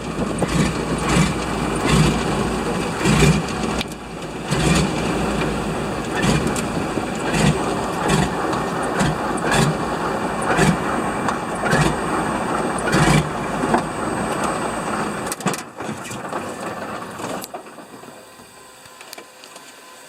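De Havilland Beaver floatplane's engine running at low power with a regular pulsing beat, then dying away about fifteen seconds in.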